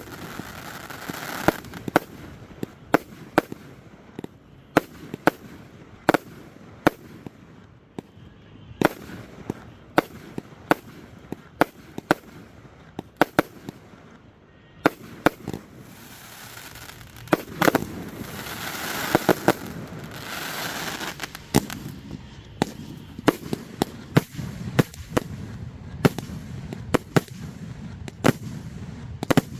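Aerial fireworks shells bursting in an irregular string of sharp bangs, with crackling and hissing between them.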